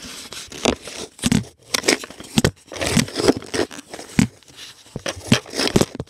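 Cat treats being handled and crunched close to the microphone: irregular crinkling and crackling with crunchy snaps.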